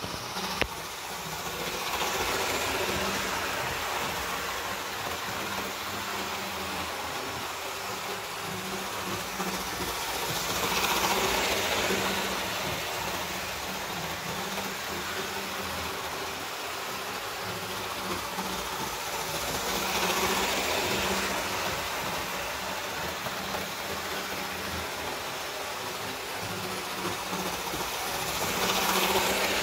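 Tri-ang R250 model diesel locomotive running round the track with three coaches: a steady electric motor hum and wheel rumble on the rails, swelling each time it comes round close by, about every nine seconds. A single sharp click about half a second in.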